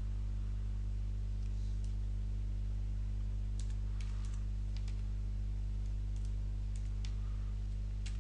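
Steady electrical hum on the recording, with a few faint computer keyboard keystrokes about halfway through and again near the end.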